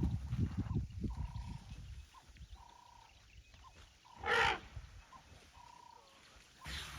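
African elephant blowing short blasts of air through its trunk, twice, each about half a second long, with a low rumble before them. Faint short whistled bird calls repeat in the background.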